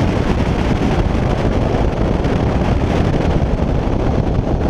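Bass boat running across the lake under outboard power: a steady rush of wind buffeting the microphone over the engine and hull noise.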